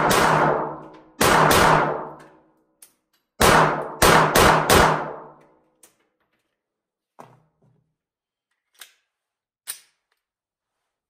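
Glock 48 9mm pistol fired about seven times in quick strings during the first five seconds, each shot ringing off over about a second. A few faint clicks follow near the end.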